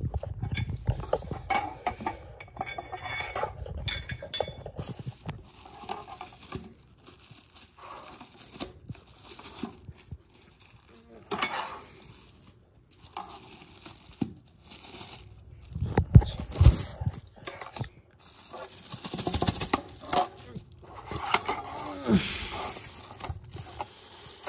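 Plastic packaging rustling and crinkling, with clinks and knocks as ceiling-fan blades and small hardware are handled, coming and going irregularly.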